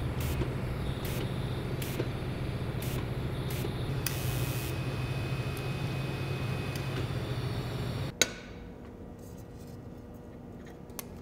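TIG welding arc buzzing steadily while a joint is welded, cutting off with a click about eight seconds in as the arc is stopped.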